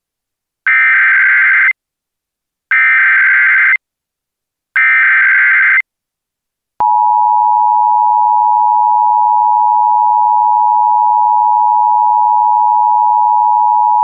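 Emergency Alert System SAME header: three one-second bursts of screeching digital data tones about a second apart, which carry the alert's coded event and area. About seven seconds in, the steady two-tone EAS attention signal starts and holds.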